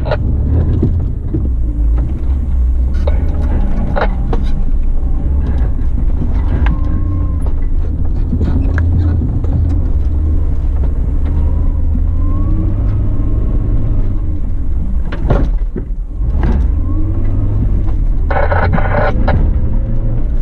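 Suzuki Grand Vitara's 2.0-litre four-cylinder engine running as the SUV crawls over rough dirt, with a steady low rumble and a pitch that rises and falls. Scattered knocks and clatters from the vehicle come through over rough ground.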